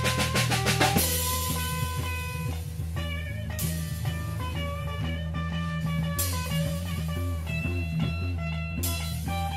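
Rock music with electric guitar, bass and drums: a fast drum fill in the first second, then sustained guitar melody notes, with a cymbal crash about every two and a half seconds.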